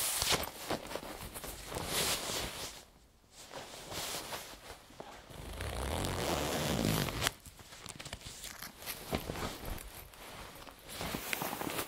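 Parka zipper being unzipped and zipped up again several times in rasping strokes, recorded close to the teeth, with rustling of the jacket fabric. A louder stretch with low rumble comes about halfway through.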